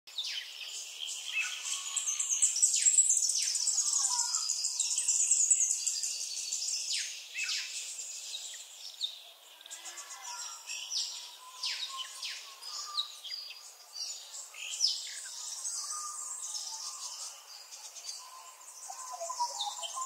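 A chorus of songbirds chirping and twittering, many quick high calls overlapping, some sweeping downward. It is busiest in the first six seconds or so and thins out after that.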